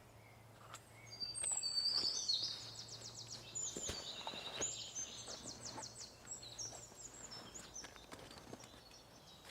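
A songbird singing a long, fast run of high trills and twittering notes, loudest from about one to six seconds in, with a few faint clicks around it.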